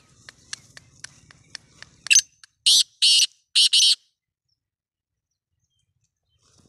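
A run of sharp clicks, about four a second, leads into four loud, harsh call notes from a caged francolin, about two seconds in.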